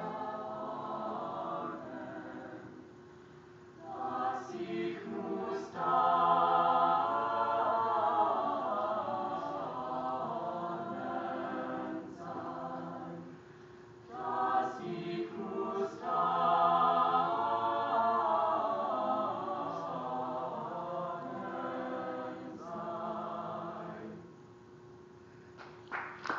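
A choir singing a madrigal a cappella, in phrases that swell louder and then fall away into brief lulls between them.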